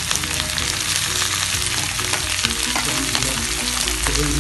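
Freshly added sliced onions sizzling in hot oil in a black kadai, a steady dense hiss with many small crackles and pops.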